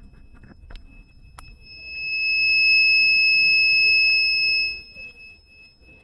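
The 5 V buzzer of a homemade solar-powered soil moisture alarm sounds one steady high-pitched tone. It is sounding because one of its iron-nail probes is out of the soil, the condition the circuit reads as dry soil. The tone swells to full strength about two seconds in, holds, and fades away near the end.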